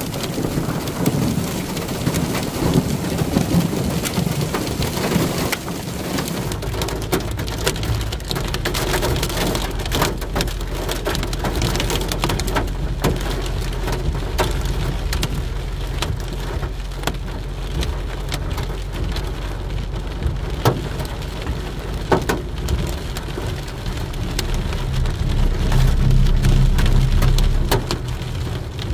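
Rain falling steadily, with many sharp taps of drops striking a hard surface. A steady low hum joins underneath about six seconds in.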